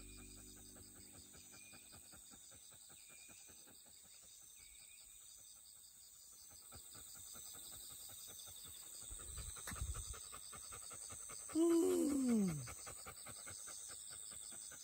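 Bernese Mountain Dog panting steadily in quick breaths. About ten seconds in there is a low thump, and soon after comes the loudest sound: one vocal sound about a second long, falling in pitch.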